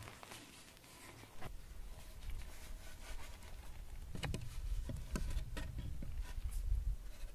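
Light knocks and scrapes of a fired clay basin being set down and shifted on stones and ash, over a low rumble. The knocks come thickest from about four seconds in.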